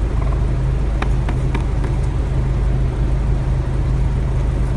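Steady low rumble of a vehicle running, with a few faint clicks.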